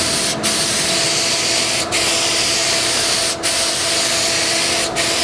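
Spray gun hissing as it is swept across cabinet panels, with a brief break about every second and a half. A faint steady hum runs underneath.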